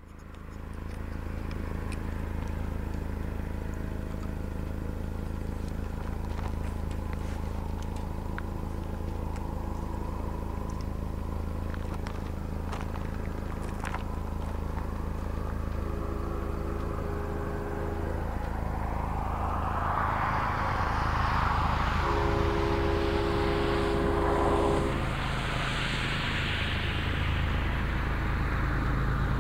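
Diesel locomotive horn of an approaching freight train sounding two long blasts in the distance, the first about halfway through and the second a few seconds later, over a steady low rumble. A rushing noise swells and fades in the second half.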